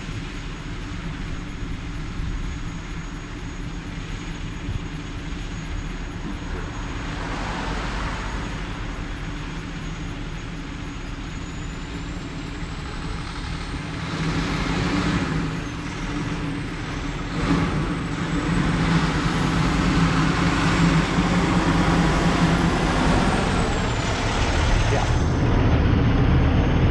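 Truck engine running close by, a steady hum that grows louder from about halfway through.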